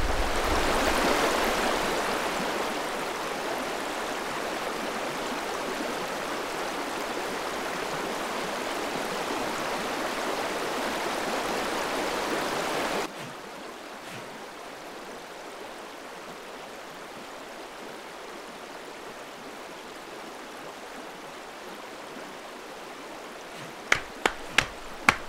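Rushing river water running over a shallow, stony riffle, a steady rush that drops abruptly about thirteen seconds in to a softer, quieter flow. Near the end a few sharp ticks begin.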